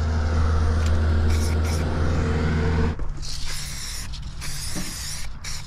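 An aerosol can of marking paint hissing as it sprays, first in a few brief squirts and then in longer sprays with short breaks from about three seconds in. Under the first half an engine hums steadily at idle, cutting off suddenly about three seconds in.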